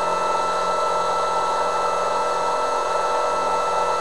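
Turnigy G-25 870KV brushless outrunner motor spinning a Master Airscrew 10x7 propeller at a steady low throttle on a thrust test, a steady electric whine over propeller wash.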